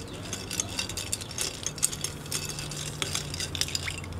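Long metal bar spoon stirring ice cubes in a tall glass of milky cocktail: many quick, irregular clinks of ice against the glass and spoon.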